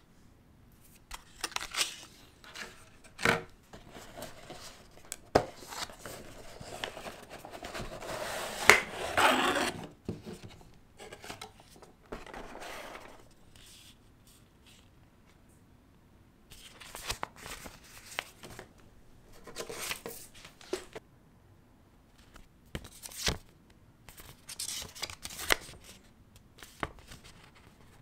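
Hands handling a processor's clear plastic clamshell packaging and then a paper instruction leaflet: irregular rustling and crinkling with sharp clicks, the longest rustle about six to ten seconds in.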